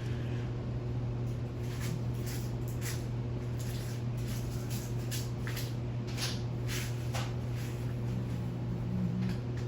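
52-inch GE ceiling fan running with a steady motor hum, with irregular light ticks over it.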